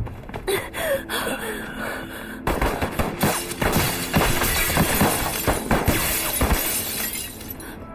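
Gunfire with glass shattering: scattered sharp hits at first, then a dense rapid run of shots and breaking glass from about two and a half seconds in, dying away near the end.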